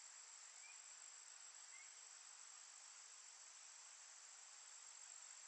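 Faint forest ambience: a steady high-pitched insect drone, cricket-like, over a soft hiss, with two brief faint chirps about a second and two seconds in.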